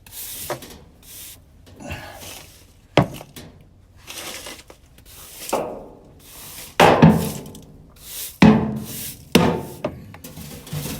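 Debris being swept out from under a tipped-over clothes dryer: irregular brushing and scraping strokes, with several sharp knocks and thuds, the loudest about three, seven and eight and a half seconds in.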